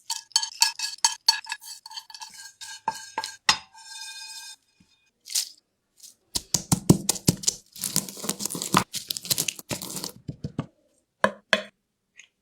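Kitchen utensils knocking and clinking against a metal bowl that rings after each knock, for about four seconds. After a short pause comes a denser run of quick knocks and scraping, then two last knocks near the end.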